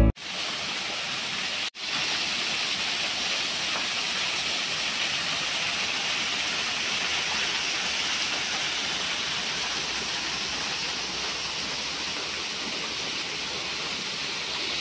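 Small waterfall splashing down stacked stones: a steady rushing hiss of falling water, briefly cut off near two seconds in.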